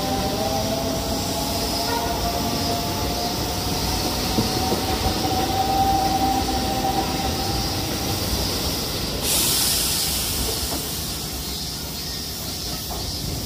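Shin-Keisei 8800 series electric train pulling away with its GTO-VVVF inverter whining, several tones rising slowly in pitch as it accelerates and fading by about seven seconds in. A steady hiss starts suddenly about nine seconds in.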